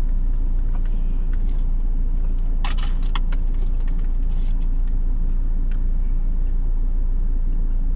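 Steady low rumble inside a car cabin with the engine running, with a few short clinks and rattles around three and four and a half seconds in.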